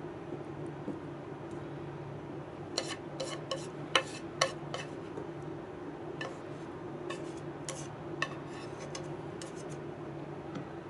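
Wooden chopsticks scraping and tapping against a frying pan as stir-fried potato and green bean strips are pushed out onto a plate. The sharp clicks come in clusters, the loudest two about four seconds in, over a steady low hum.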